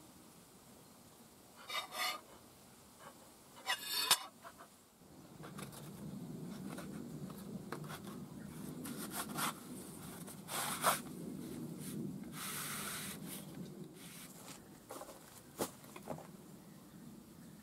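Steel straightedge scraping and rubbing on the gasket face of a Nissan SD22 cylinder head as it is checked for flatness: two short scrapes in the first few seconds, then softer handling rubs and clicks with a low rumble underneath, and a longer sliding scrape about twelve seconds in.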